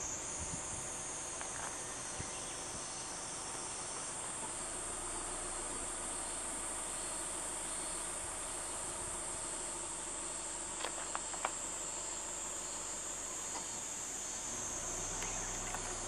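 A steady, high-pitched chorus of insects, with three short faint clicks about two-thirds of the way through.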